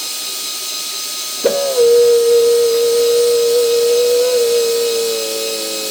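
Heat gun running, blowing hot air onto the dirt bike's aluminium wheel hub to expand it for a new wheel bearing: a steady hiss of air, and about a second and a half in a loud steady whine comes in that sinks slightly in pitch near the end.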